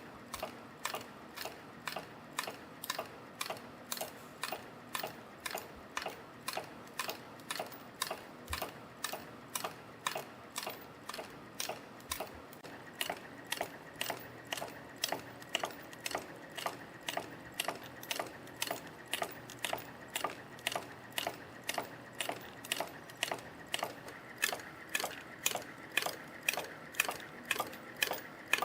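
YHM FB-220 CNC strip and wire forming machine running in production, forming spring clips: an even train of sharp metallic clacks about twice a second over a steady machine whir.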